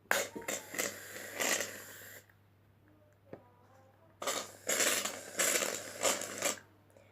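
Aerosol can of shaving foam spraying in two hissing squirts of about two seconds each, the second starting about four seconds in.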